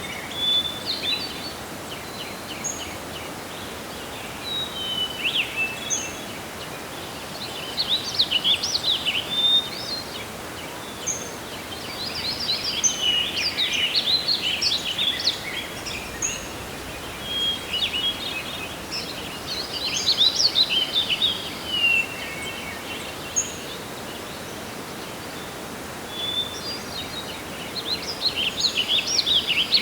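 Songbirds singing and chirping in a forest, with short high calls throughout and busier bursts of song about a third of the way in, in the middle, and near the end, over a steady hiss of wind.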